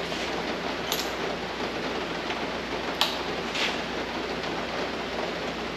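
A steady rushing background noise, with a few short metallic clicks and scrapes as a ratchet and socket work a spark plug out of a Chrysler 440 V8's cylinder head.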